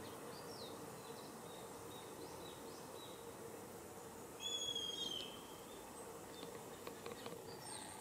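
Small wild birds chirping over a faint steady wash of water. About halfway through comes a short, level, high whistled call, the loudest sound, followed by a few faint ticks near the end.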